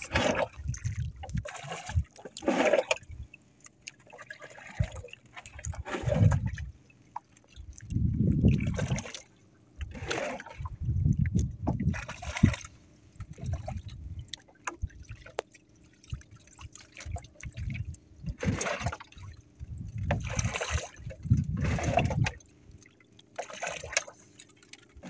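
Sea water lapping and splashing against the hull of a small outrigger boat in irregular bursts, with louder low rumbles every few seconds and a faint steady hum underneath.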